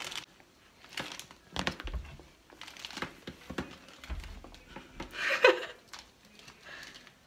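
Plastic crisp packet crinkling and rustling as it is handled, with two dull thumps. About five seconds in comes a louder, short squeak falling in pitch.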